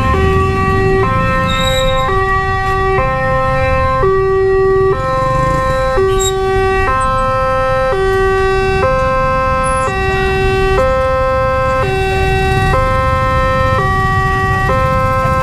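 Electronic warning bell of an Indonesian railway level crossing sounding its two-tone alarm. It alternates steadily between a lower and a higher tone, about one pair a second, signalling that a train is approaching and the barrier is closing.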